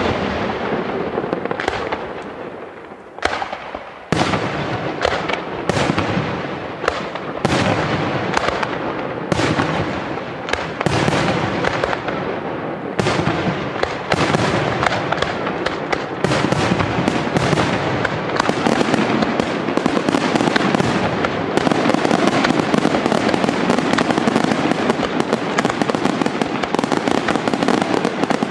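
Aerial firework shells bursting in quick succession. The reports come closer and closer together until, about two-thirds of the way in, they merge into a continuous barrage of bursts.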